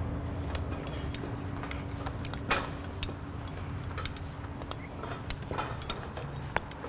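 Metal scaffold ladder being climbed: scattered light clicks and knocks of boots on the rungs and harness hardware and lanyard hooks clinking against the frame, the loudest knock about two and a half seconds in. A steady low hum runs underneath.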